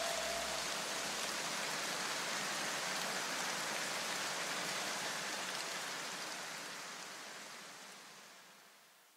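A steady, even hiss of noise, like rain, left over from the end of the electronic background music, fading out to silence over the last few seconds.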